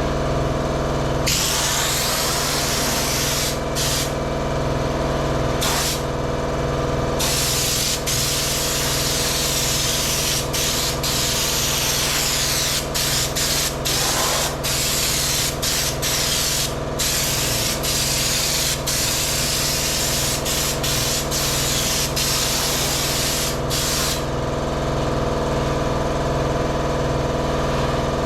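Air spray gun spraying Raptor bedliner: a loud hiss that starts about a second in, breaks off briefly several times (many short breaks in the second half), and stops near the end. A steady machine hum runs underneath throughout.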